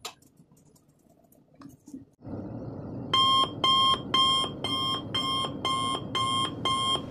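Electric oven's electronic beeper sounding a repeated alert, about two even beeps a second, over a steady fan whir that starts a moment before the beeping.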